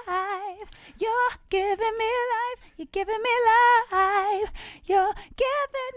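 A solo sung lead vocal of short phrases with vibrato, with no accompaniment, played back through Logic Pro X's Compressor in its Vintage VCA model. It is being compressed by several dB and sounds very, very smooth.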